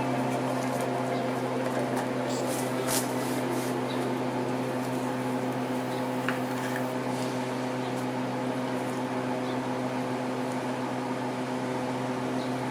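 Steady mechanical hum holding one constant pitch, with a few faint ticks.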